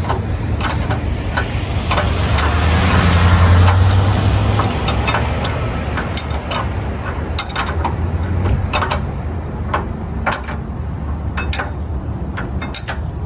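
Bolts on a truck's upper control arm being tightened: scattered sharp metallic clicks and clanks over a steady low hum that swells for a few seconds near the start.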